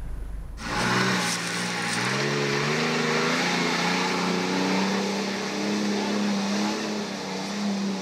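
Old army truck's engine pulling under load, its pitch climbing over the first couple of seconds, then holding steady.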